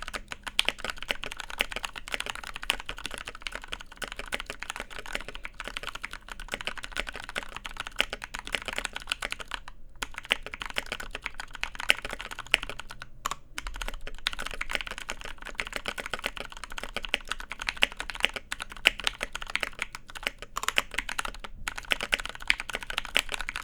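Mechanical keyboard fitted with 1.5 mm-thick keycaps being typed on in a continuous, fast run of keystrokes, with a few short pauses about 10, 13 and 21 seconds in.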